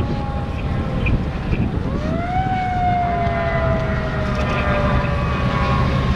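A siren winds up quickly about two seconds in and then slowly falls in pitch, over the steady rumble of a fire engine's running engine.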